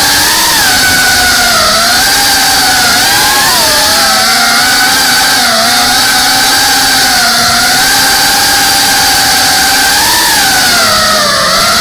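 FPV drone's electric motors and propellers whining, heard close from the onboard camera, the pitch wavering up and down with the throttle as it flies.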